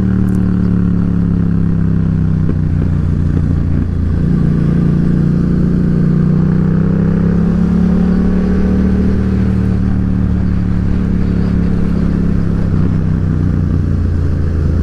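Yamaha XSR700's parallel-twin engine running steadily while cruising, its note dipping briefly about three seconds in and then holding even.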